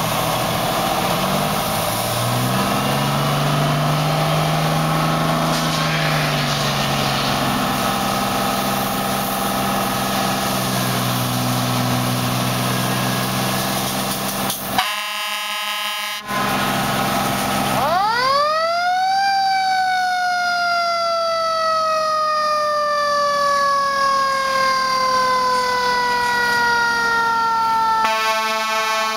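Fire engines' motors and pumps running while water sprays from hose lines, with a brief horn blast just past the middle. Then a mechanical fire siren winds up quickly and coasts slowly down in pitch for several seconds. An air horn comes in near the end.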